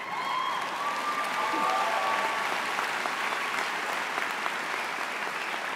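Large audience applauding, with a few voices calling out over the clapping in the first two seconds. The applause swells to its peak about two seconds in, then slowly thins.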